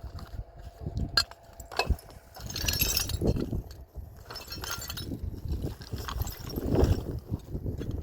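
Scattered knocks and clinks of hard objects being handled, with short bursts of rustling between them.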